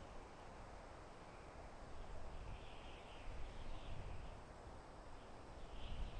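Soft wind blowing through forest trees, a faint, steady rushing hiss with a low rumble underneath. A faint, high, wavering call comes in from about two seconds in and fades by about four seconds.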